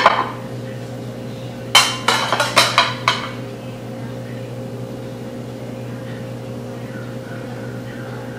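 A quick cluster of sharp clinks and clatters, a metal cake spatula knocking against ceramic plates on a stone counter, from about two seconds in for a second and a half. A steady low hum runs underneath.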